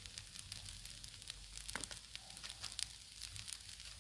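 Red beans, rice and smoked sausage frying on a Blackstone steel flat-top griddle: a steady light sizzle with irregular small pops and crackles.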